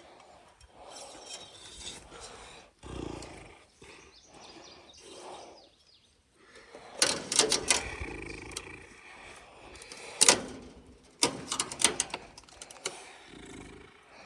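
Rustling handling noise with clusters of sharp clicks and knocks from about halfway through, as electric fence wire is worked by hand at an egg insulator at the end of the line.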